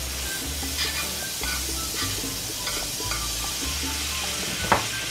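A spoonful of butter sizzling as it melts in a hot frying pan, a metal spoon scraping and tapping the pan, with one sharper clink near the end. Background music with a bass line plays underneath.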